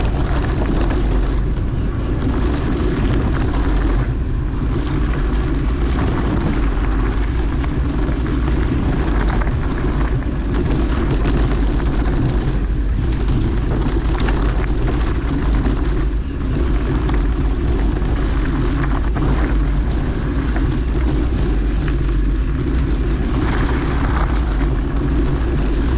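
Steady rush of wind buffeting the microphone, with tyre and trail noise underneath, while riding a bicycle.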